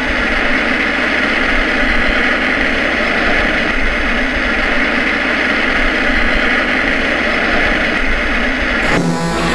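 Steady rumbling noise with a hiss, a sound effect. Music starts near the end.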